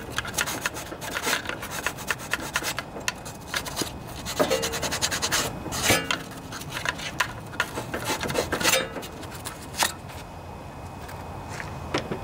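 Sanding block scrubbing the metal coil mounting posts of a Kohler Courage twin-cylinder engine, in short rasping strokes that come in runs with brief pauses. The posts are being cleaned to bare metal so the new ignition coil grounds well.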